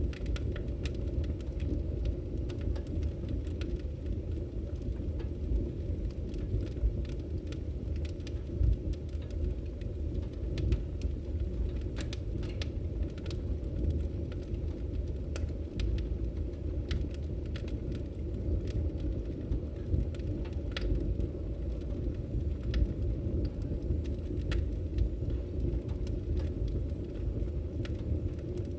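Fire burning in a fireplace: a steady low rumble of flames with scattered sharp crackles and pops at irregular intervals.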